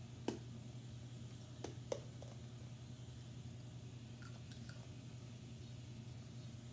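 A hard-candy lollipop in the mouth being sucked and chewed: a few sharp clicks of the candy against the teeth, the loudest near the start and two more just under two seconds in, with fainter ticks about two-thirds through. A steady low hum lies under them.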